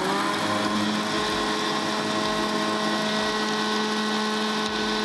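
Small electric food chopper running at a steady pitch, grinding cookies into fine crumbs.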